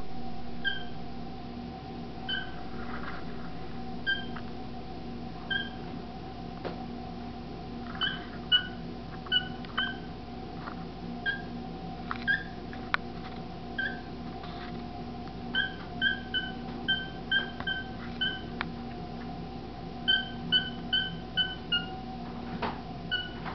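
Cockatiel giving short, high, slightly falling peeps, one at a time and then in quick runs of several, over a faint steady hum.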